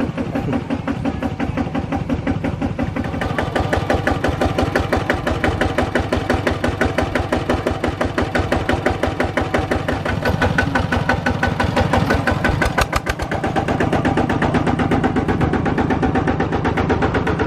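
A small engine running steadily with a rapid, even putter, growing louder and brighter about three seconds in.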